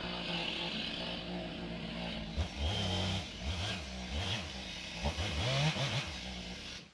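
Gasoline engine revving up and down repeatedly, in short rising sweeps, stopping suddenly near the end.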